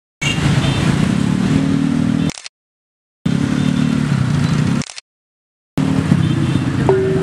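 Motor scooter engines running in slow, crowded street traffic, cut off abruptly twice by about a second of silence. A steady musical tone with an even beat comes in near the end.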